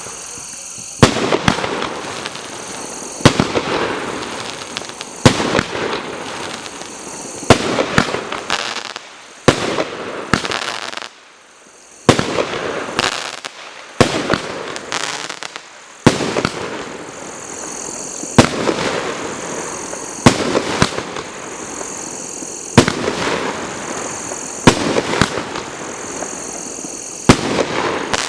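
Vyuga consumer firework battery firing shot after shot, a sharp bang roughly every two seconds, each followed by crackling and hissing as the effect bursts.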